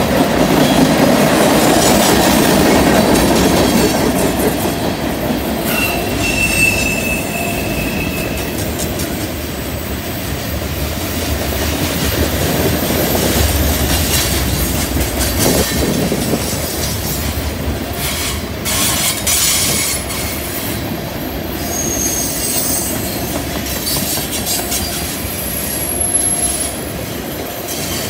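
Freight train's tank cars and covered hopper cars rolling past on a curve: a steady rumble and clatter of steel wheels on rail, with a few brief, thin, high-pitched wheel squeals from the curve.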